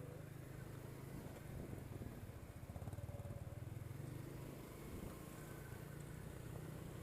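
ATV engine running steadily at low revs.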